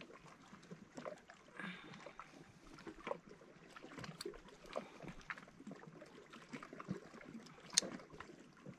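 Handling noises as hooks are worked out of a landed fish's mouth: scattered light clicks and rustles, with one sharper click near the end.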